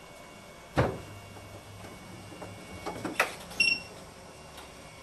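An electric unicycle, a KingSong 16X, being handled on a wooden shelf: a knock about a second in and a few clicks around three seconds. Just after the clicks comes a short high electronic beep as the wheel switches on.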